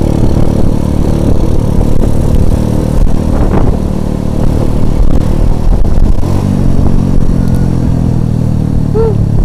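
Small motorcycle engine running while riding, with wind rushing over the microphone and road noise; the engine note shifts a little with the throttle partway through.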